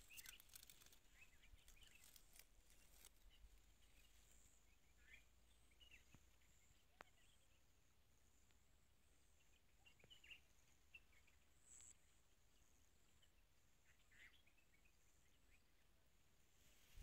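Near silence: faint outdoor field ambience with scattered short bird chirps and a steady faint high-pitched hiss.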